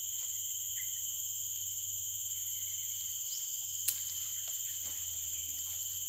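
Forest insects keeping up a steady, high-pitched chorus at several pitches, with one sharp click about four seconds in.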